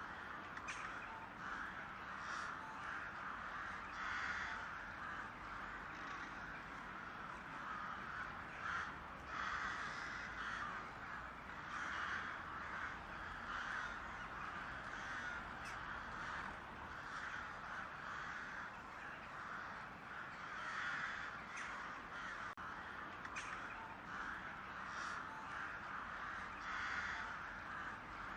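Crows cawing over and over, one call following another every second or two.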